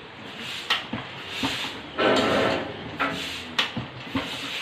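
Manual jack of a forage-baling press being pumped by its long lever: a series of metal clanks and knocks, roughly one every half second, with a louder noisy stretch about two seconds in.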